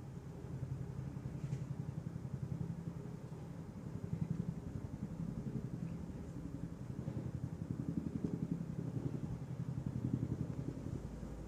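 Boeing Chinook tandem-rotor helicopter passing at a distance: a rapid, even thudding from its rotors that swells and eases several times.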